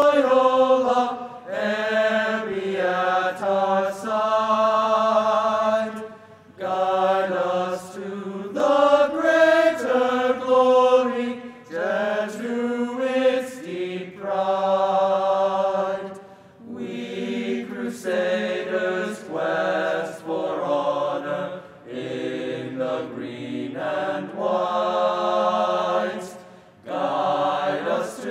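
Male vocal ensemble singing a cappella in several-part harmony, slow and sustained, with held chords and vibrato. The phrases last about five seconds each and are broken by brief breaths.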